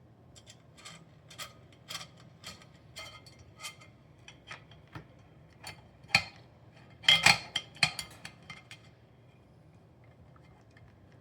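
Small sharp clicks and clinks of metal rack parts and a short screw being handled and driven in during assembly of a mini server rack: a run of light ticks about two a second, then a louder flurry of clinks a little past the middle.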